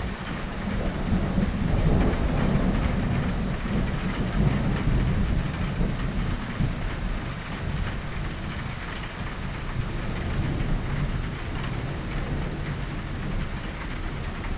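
Thunder rumbling over steady rain. The deep rumble swells about a second in, peaks over the next few seconds and slowly dies away, with a weaker swell near the end.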